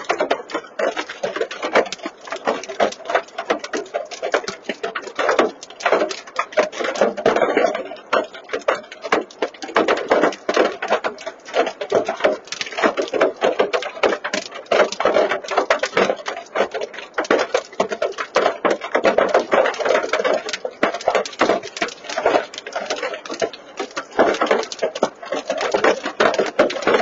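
Hail pelting a parked pickup truck, heard from inside the cab: a dense, continuous clatter of many small hard impacts.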